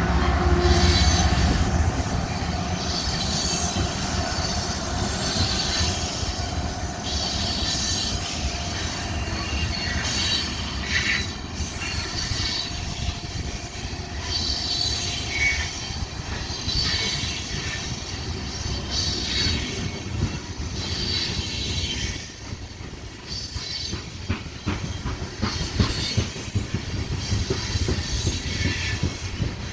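Freight train cars rolling past in a steady rumble, with short high wheel squeals repeating every second or two.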